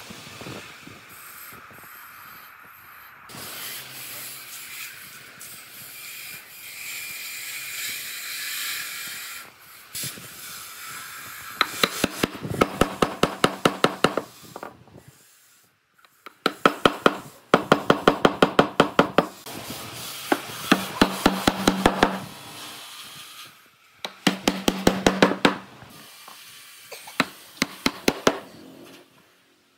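Hand work on hardwood: a rough rubbing, rasping noise for the first third, then bursts of fast, sharp taps on wood at about five or six a second, with short pauses between the bursts.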